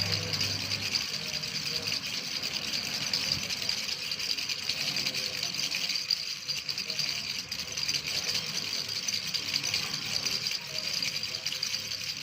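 Baby rattle shaken continuously, a rapid, steady rattling.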